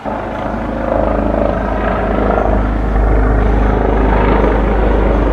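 Car driving along a road: a steady low rumble of engine and road noise that grows louder about a second in and again about three seconds in.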